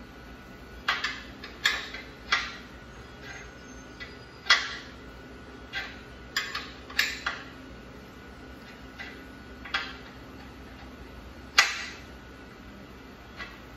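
Sharp metallic clinks and taps of a hand tool against metal fittings under a log splitter, about a dozen at uneven intervals, some with a brief ring. The loudest comes near the end.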